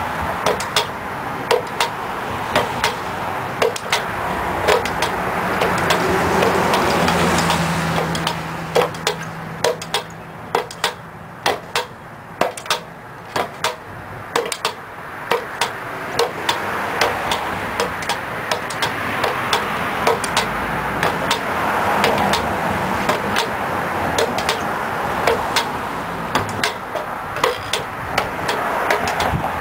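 Pogo stick bouncing on asphalt: its tip strikes the ground in a steady rhythm, a little under two landings a second. Passing traffic swells and fades behind it.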